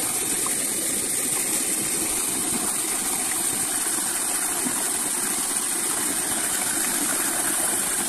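Waterfall: a steady rush of falling water, even in level throughout.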